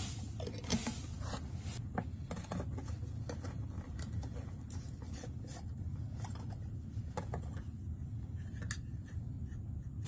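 Light handling sounds of PVC pipe priming: the applicator rubbing on the end of a plastic PVC pipe, and the primer and cement cans and their screw lids clicking and tapping. There are scattered small clicks throughout, a sharper one just under a second in, over a steady low hum.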